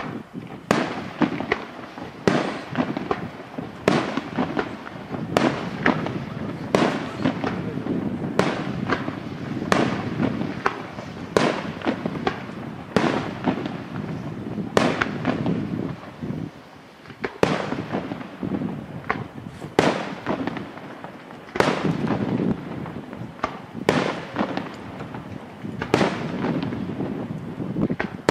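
Aerial firework shells bursting in quick succession: sharp bangs about one to two a second, each trailing off in an echo, over a steady wash of sound between them.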